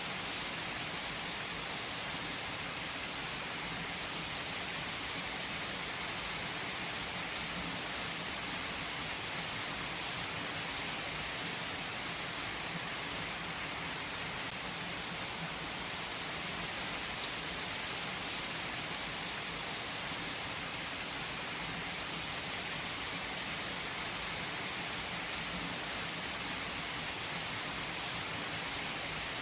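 Heavy rain falling steadily on trees: a dense, even hiss with a few single drops standing out now and then.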